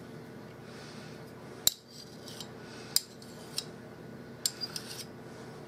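Metal serving spoon clinking against a plastic mixing bowl of mayonnaise and mustard: a handful of short, sharp taps at irregular intervals, several in quick succession near the end.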